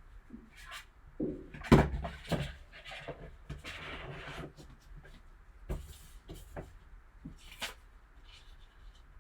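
Hands handling a trading-card box and its packaging: a sharp knock a little under two seconds in, then a few seconds of rustling and a few scattered clicks.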